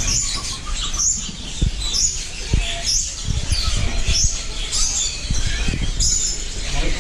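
Many small caged birds chirping at once, a dense chorus of short high chirps, with a few low knocks.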